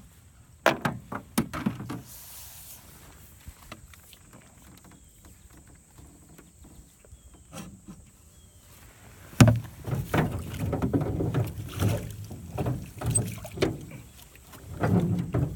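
A small aluminum boat being paddled: paddle strokes in the water and knocks and clunks of the paddle and gear against the metal hull. A few knocks come about a second in, then a sharp knock about nine seconds in starts a steady run of clunks and thumps.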